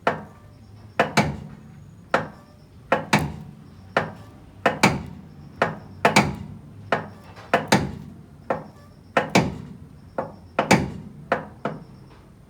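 Repeated hammer blows: about twenty sharp strikes at uneven spacing, several in quick pairs, each with a short ring.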